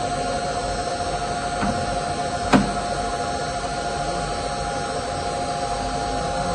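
Steady machine hum holding one even pitch, with a single sharp click about two and a half seconds in.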